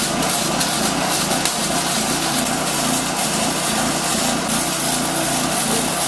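Electric arc welder crackling steadily as steel mounting points are tack-welded.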